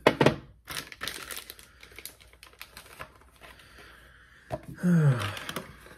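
Handling a knife box and its packaging: a few sharp clicks and taps about the first second, then quieter irregular rustling and crinkling.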